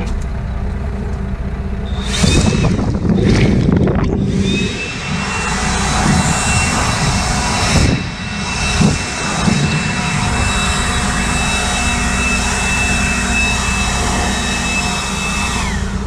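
Handheld leaf blower blowing chaff and dust off the floor of a manure spreader's bed: a few short blasts about two seconds in, then a steady rushing blast with a high whine, which winds down with falling pitch near the end. A steady low engine hum runs underneath.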